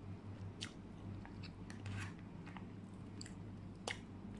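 A person chewing a mouthful of chicken biryani rice with the mouth closed, with soft wet mouth clicks scattered through, the sharpest about four seconds in. A steady low hum runs underneath.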